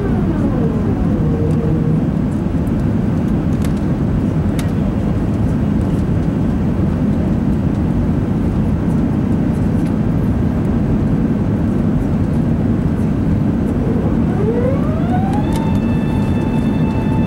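Loud, steady cabin noise of an Airbus A380 climbing after takeoff, heard at a window seat over the wing. A whining engine tone falls in pitch in the first second and rises again near the end.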